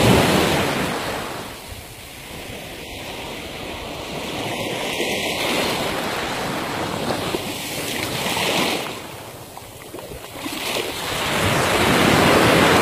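Sea surf washing onto a sandy beach, swelling and easing in surges, with wind buffeting the microphone.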